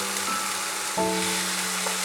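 Gentle background music of held notes, with a new chord about a second in, over a steady sizzle of food frying in a pan.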